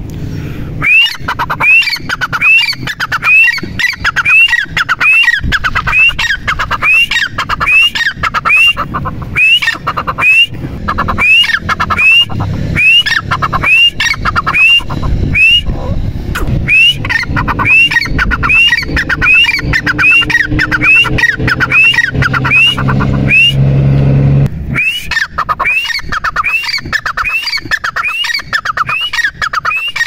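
Grey francolin (teetar) calling: a long run of loud, repeated hooked notes at about two a second, which breaks off briefly twice and then resumes. A low hum runs beneath the calls for a few seconds before the second break.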